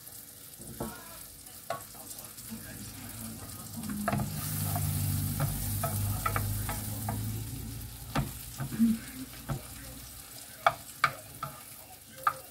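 Mushrooms sizzling as they fry in butter in a frying pan, with a wooden spoon stirring through them and through a pot of baked beans. The sizzle grows louder for a few seconds in the middle, and sharp taps of the spoon against the pans come more often in the second half.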